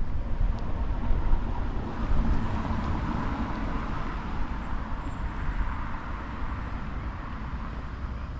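A car passing on the street: its tyre and engine noise swells to a peak a few seconds in and then fades away, over a steady low rumble of wind on the microphone.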